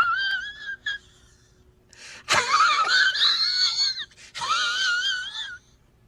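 A high-pitched, wheezy wailing squeal from a meme sound effect, wavering up and down in pitch, in three bursts: a short one at the start, a long loud one in the middle and a shorter one near the end.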